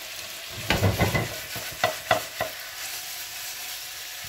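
Chicken, onions and tomatoes sizzling in a covered frying pan on a gas hob, with a cluster of knocks and clinks from about a second to two and a half seconds in as the pan and its glass lid are handled.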